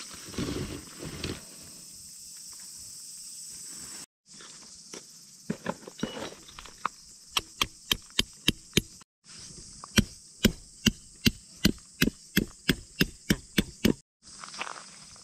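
A peg hammer driving metal tent pegs into hard ground: quick, regular strikes, about three a second, in two runs. They follow a little rustling as the tent's belt is handled.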